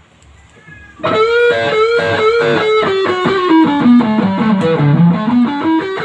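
Epiphone guitar playing a melodic line of single plucked notes, starting about a second in; the line steps down in pitch and climbs back near the end.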